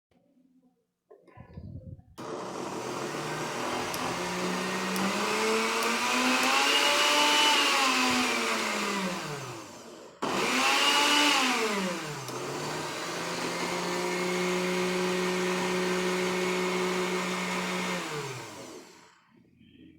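Arno CLIC-LAV LN72 blender motor, just reassembled after a repair to its burnt electronic switch, switched on for a test: the motor spins up and its pitch rises and then falls, it stops briefly about halfway, starts again, rises and falls once more, then runs steadily before switching off near the end. A few faint knocks of handling come before it starts.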